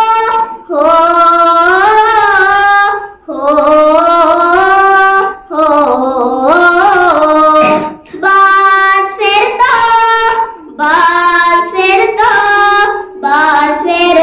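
A girl singing a Kashmiri nazm solo and unaccompanied, in phrases of a few seconds each with short breaks for breath between them.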